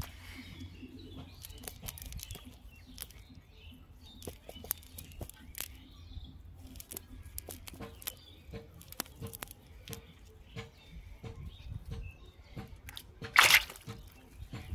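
Clicks and rustles of a cast net being picked over by hand, with birds chirping in the background. Near the end, a loud splash in a metal basin of water.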